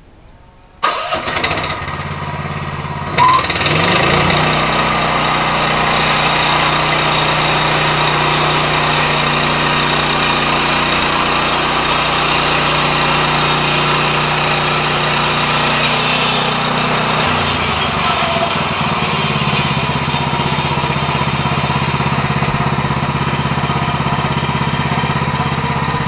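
Gasoline engine of a Pascal Métal portable band sawmill starting up suddenly about a second in, rising to full speed a couple of seconds later, then running steadily as the band blade saws a slice off a cedar cant. The tone of the engine and blade shifts partway through and again near the end.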